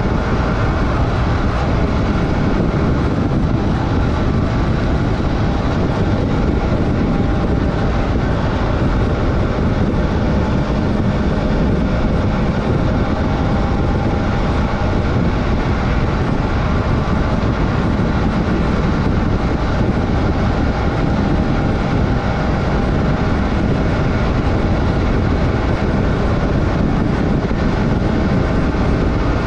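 Adventure motorcycle engine running at a steady pace while riding, mixed with heavy, even wind noise on the microphone.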